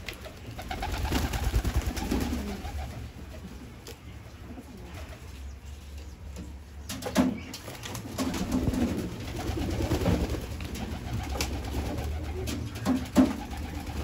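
Pigeons cooing in several drawn-out bouts, over a low steady rumble, with two sharp clicks, one about halfway and one near the end.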